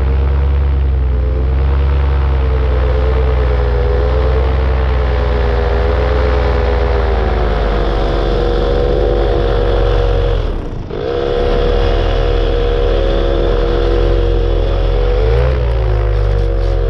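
Paramotor engine running under power, its pitch wavering as the throttle is worked. About ten and a half seconds in it dips sharply for a moment, then picks straight back up and runs on steadily.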